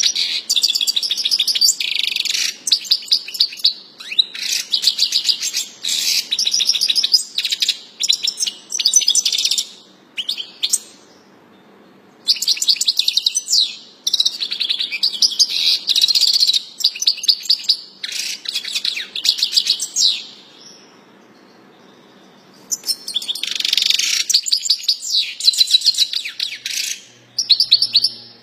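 European goldfinch singing: long phrases of rapid, high twittering notes, broken by two pauses of a couple of seconds, about ten seconds in and again around twenty seconds in.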